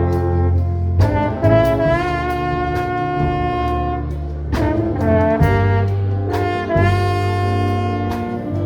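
Orchestra with prominent brass playing slow, sustained chords that change every second or so over a steady bass line.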